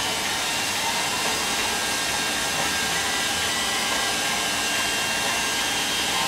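Hair dryer blowing steadily, a constant rushing hiss with a few faint steady tones.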